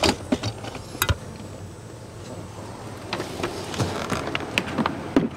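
Tools being rummaged through in search of a Phillips screwdriver: a sharp knock at the start and another about a second in, then scattered light clicks and clinks.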